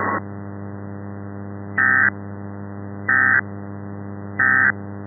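Three short bursts of EAS SAME digital data tones, evenly spaced about a second and a half apart: the End of Message codes that close an Emergency Alert System alert. A steady low hum runs underneath.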